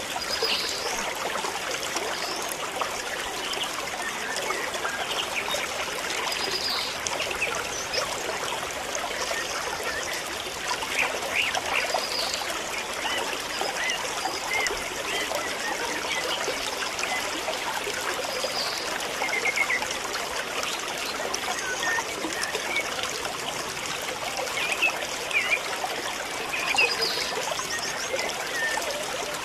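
A steady rushing hiss like running water, with short high chirps scattered through it and a few louder ones near the end.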